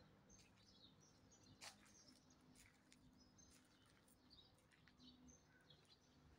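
Near silence with faint, scattered bird chirps and a soft click about a second and a half in.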